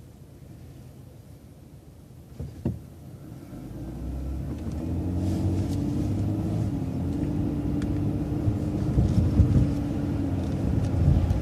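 City transit bus engine pulling away and running under load, getting louder from about three and a half seconds in, after a quiet stretch with two short knocks.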